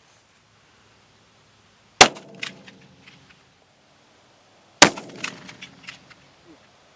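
Two high-powered rifle shots about three seconds apart, each a sharp crack that trails off in echo.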